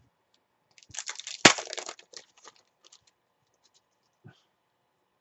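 Foil trading-card pack being ripped open and crinkled, about a second long, with a sharp crack in the middle of it. A few faint clicks of cards being handled follow.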